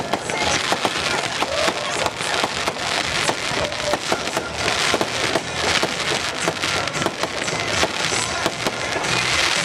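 Aerial fireworks bursting overhead in a dense, continuous crackle of many rapid pops.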